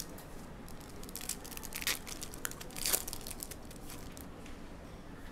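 Foil wrapper of a 2023 Select UFC trading-card hobby pack crinkling as it is handled, with a few sharper crackles about one, two and three seconds in.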